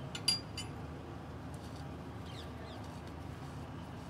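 A sharp metallic click about a third of a second in, from hands working at the alternator and fan shroud of a John Deere 5405 tractor engine. A steady low hum runs underneath, and a few faint bird chirps come after the middle.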